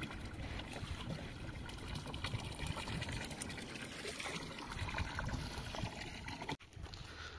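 Water running steadily from a pipe spout and splashing into a concrete trough.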